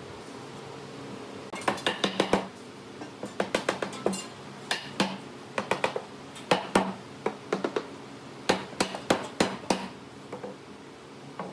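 Quick bursts of sharp hammer taps, three to six rapid strikes at a time, repeating about once a second, over a steady low machine hum.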